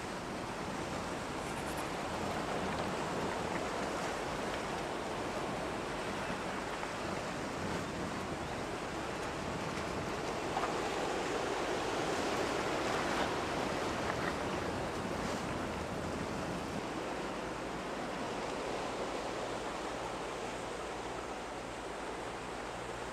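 Sea waves washing against a rocky shore, with wind; the wash grows louder for a few seconds around the middle.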